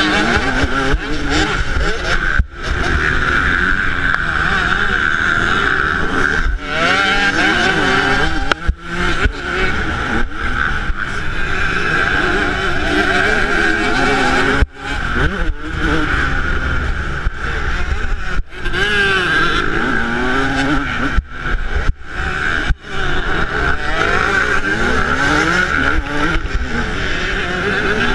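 2008 Yamaha YZ125's 125 cc single-cylinder two-stroke engine racing, its pitch rising and falling again and again as the throttle opens and closes. The sound drops out briefly several times.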